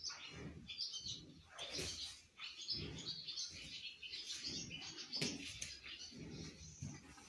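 Small birds chirping over and over, with low rustling and bumping sounds underneath.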